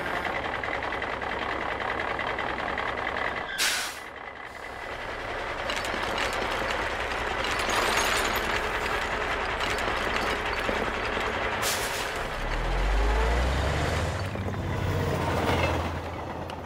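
Dump truck sound effects: an engine running with a brief air-brake hiss, a noisy clatter as the tipped load pours out, and another hiss. A deep low hum rises in pitch near the end.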